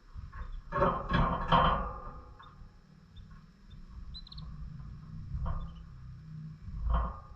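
Pet lovebirds in their cage: short harsh bursts about a second in, midway and near the end, with faint short high chirps between them. A low steady hum runs underneath.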